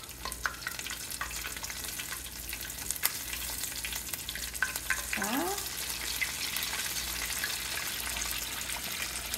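Hot oil in a cast iron skillet sizzling and crackling steadily around buttermilk-and-flour-battered chicken pieces freshly dropped in to fry.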